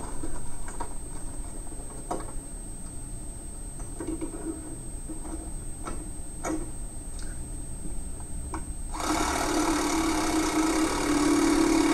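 A few light clicks and taps, then about three-quarters of the way in a cordless impact driver starts hammering, driving a self-tapping screw through a shock-mount bracket into the trailer frame.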